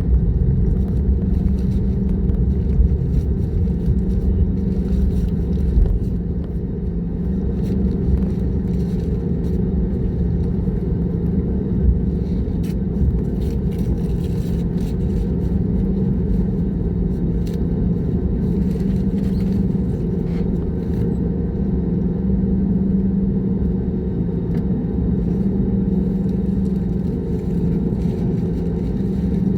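Airliner jet engines running steadily: a continuous low rumble with a steady hum.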